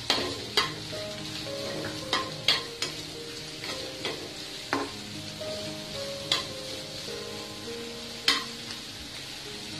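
Chopped onions sizzling in hot oil in a kadhai while a spatula stirs them, with several sharp scrapes and taps of the spatula against the pan. Soft background music sits underneath.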